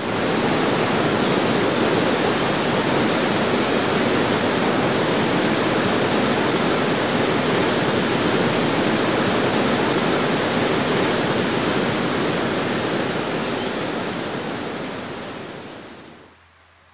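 A loud, steady rushing noise with no pitch or rhythm. It starts abruptly and fades out over the last few seconds.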